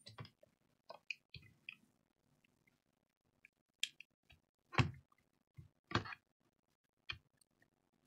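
Plastic clicks and knocks as a laptop battery pack is pushed into its bay and the laptop chassis is handled. A few light clicks come first, then sharper knocks, the two loudest about five and six seconds in.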